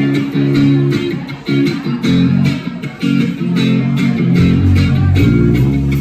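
Live band music: an electric guitar plays a riff over a steady ticking beat, and a bass guitar comes in strongly about four and a half seconds in.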